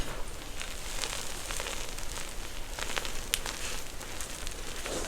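Crunchy slime being squished and kneaded by hand, giving a run of crisp crackles and small pops.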